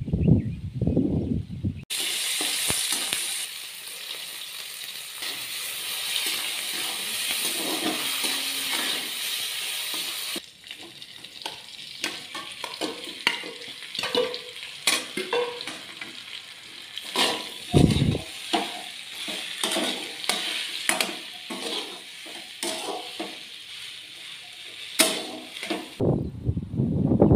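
Rice frying and sizzling in a metal pan, steady at first. From about ten seconds in, a metal spatula scrapes and knocks against the pan as it stirs. A low rumble comes in the first two seconds and again near the end.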